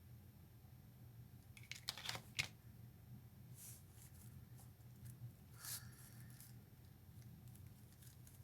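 Near silence over a faint steady hum, broken by a few small clicks and rustles of craft materials being handled, the loudest cluster about two seconds in.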